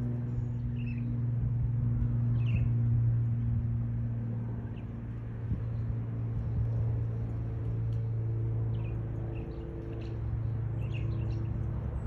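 Budgerigars giving short, sparse chirps over a loud, low, steady droning hum whose higher tones shift about halfway through.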